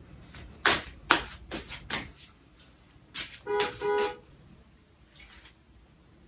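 Tarot cards being shuffled, with several sharp snaps of the cards in the first two seconds. A car horn then honks twice in the background, two short toots about three and a half seconds in.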